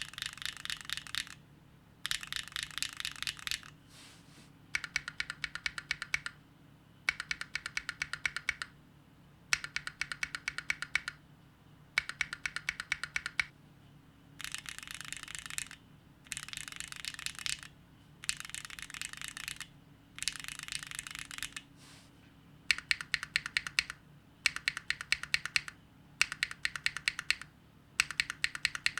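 Mechanical keyboard (Neo60 Core) being typed on in quick bursts of about a second each, a rapid run of clacking keystrokes followed by a short pause, over and over. The switches are Gateron Onyx linears, changing about halfway through to Gateron Fade linears.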